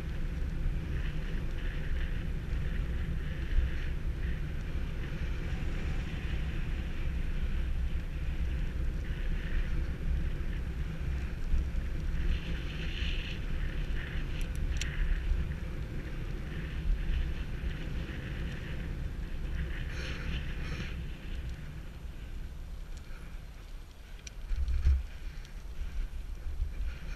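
Wind buffeting a bicycle-mounted GoPro's microphone while riding, a steady low rumble with the hiss of the bike rolling over pavement. A brief thump near the end.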